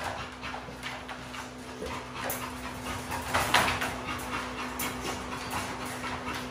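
XL American bully dog panting, a run of uneven breaths with the loudest about halfway through.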